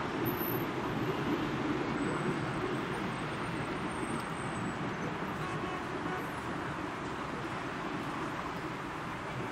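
Steady, even background rumble of distant road traffic.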